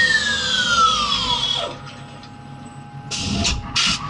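Skyfire SVM-1 mini mill's spindle winding down, its whine falling steadily in pitch for about a second and a half. About three seconds in come two short hissing bursts, in keeping with a tool change before the next facing pass.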